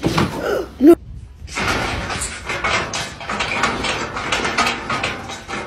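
A short loud bang in the first second, then a rapid run of metallic clattering and rattling as a cat paws and climbs at the bars of a metal railing.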